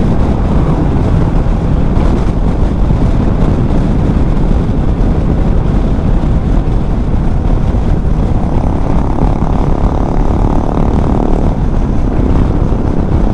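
Bajaj Dominar 400's single-cylinder engine running at a steady cruise, buried under a loud, steady wind rush on the microphone.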